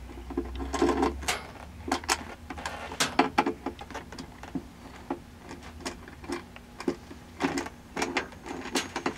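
A 5 mm T-handle Allen key turning a motorcycle seat bolt out, with a run of irregular sharp clicks and ticks as the tool and bolt work.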